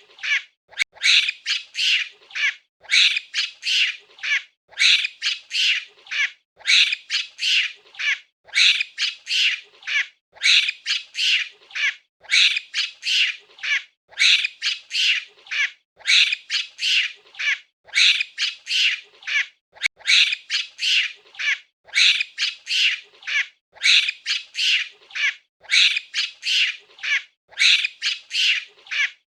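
Monkey calls: high-pitched screeching chatter in bursts of three to five quick calls, repeating evenly about every two seconds.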